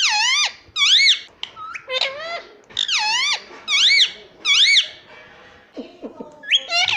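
Indian ringneck parrot giving a string of short, high, squeaky calls, each rising and falling in pitch, about one a second, with a lower, quieter call near the end.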